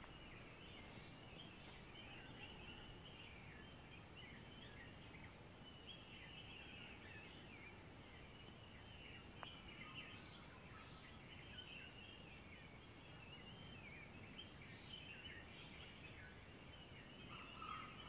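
Faint dawn chorus: many small birds chirping and twittering together without pause, with a lower call joining near the end.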